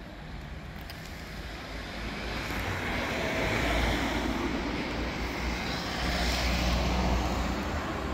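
A vehicle passing by: a rumble and hiss that swells to a peak about four seconds in and again around six to seven seconds in, then fades.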